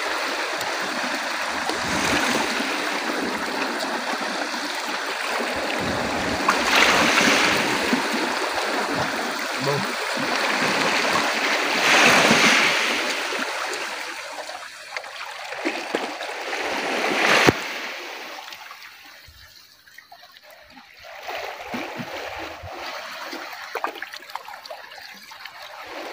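Small sea waves washing and splashing over shore rocks, swelling twice in the first half and falling quieter for the last third, with one sharp click about two-thirds of the way through.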